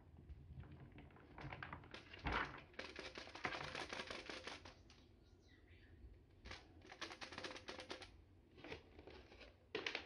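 Cat litter pellets poured from a Makita cordless vacuum's plastic dust cup into a plastic litter box, a faint clatter of many small pellets landing. The longest spill comes a couple of seconds in, with a second spill later and a few short ones near the end.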